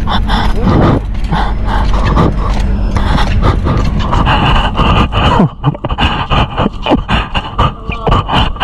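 Wind rumbling on the camera microphone of a moving bicycle in traffic. About five seconds in it drops away, leaving a quick, irregular run of clicks and scrapes.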